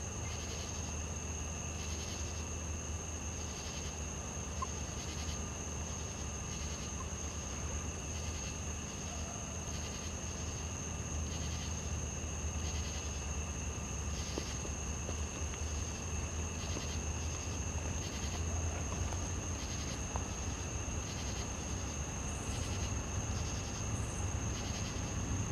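Night chorus of insects and frogs: a steady high-pitched buzz and a pulsing call repeating about twice a second. Beneath them runs the low rumble of a distant approaching diesel freight train, growing a little louder near the end.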